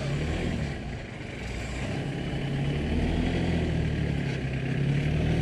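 Motor vehicle engine running nearby, a low steady hum that dips about a second in, then grows louder and holds.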